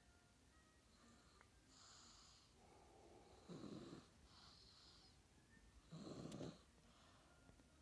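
A nine-month-old baby snoring softly in his sleep: two short snores about two and a half seconds apart, with faint airy breaths between them.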